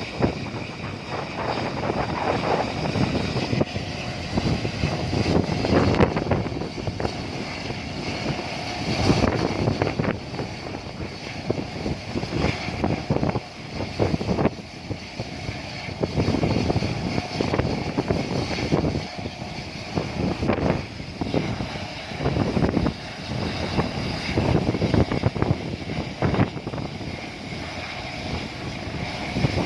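Helicopter engine and rotor noise, a steady drone under wind buffeting the microphone in uneven gusts.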